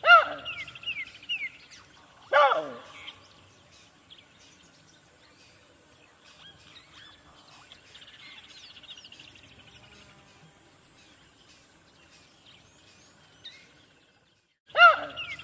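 Loud animal cries, each one pitched and falling away: one at the start, another about two seconds in, and another just before the end. Birds chirp and twitter faintly in between.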